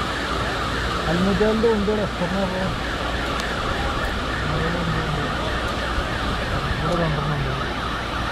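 A siren wailing steadily with rapid, repeated sweeps in pitch. Low voices are heard now and then.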